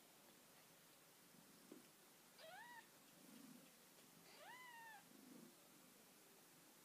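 Two short, high-pitched mews from a newborn kitten, a couple of seconds apart: the first rises in pitch, the second rises and then falls away.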